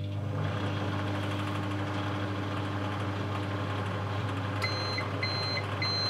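Whirlpool M434 microwave oven running a short timed heating cycle: a steady hum from its transformer and fan, then a few short high beeps near the end as the timer runs out.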